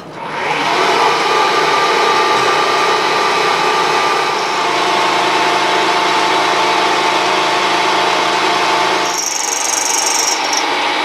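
Milling machine spindle driving a half-inch end mill down into metal to cut a counterbore, a steady cutting whine with several held tones. About nine seconds in the low tones drop away and the cutter gives a little squeak at the end of the cut.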